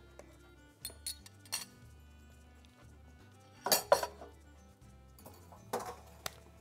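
Dishes and utensils clinking and clattering as they are set down on a kitchen counter: a few light clinks, then two louder clatters near the middle and near the end. Faint background music plays underneath.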